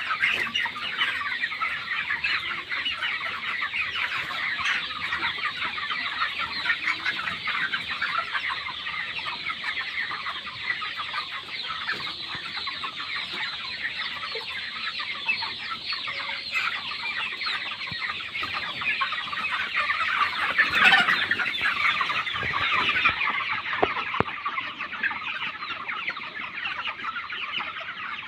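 A large flock of 25-day-old broiler chickens, about 1.6 kg each, cheeping and clucking in a dense, continuous chorus, briefly louder about two-thirds of the way through.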